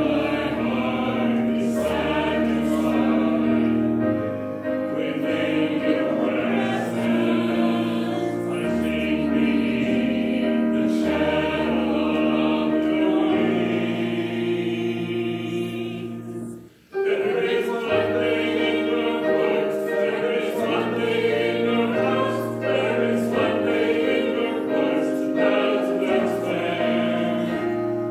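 Congregation singing a hymn with instrumental accompaniment, held chords under the voices, with a brief break between lines a little past the middle.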